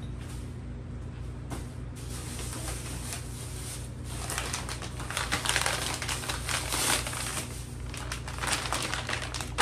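Plastic grocery bags and packaging crinkling and rustling as they are rummaged through, getting louder and busier about four seconds in, over a steady low hum.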